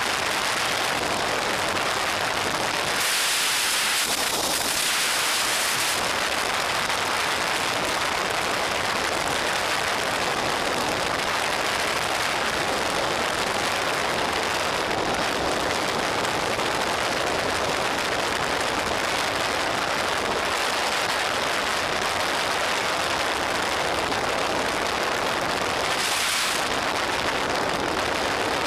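Steady rushing wind over the microphone of a camera mounted on a motorcycle riding at speed. The hiss swells for a few seconds early on and again briefly near the end.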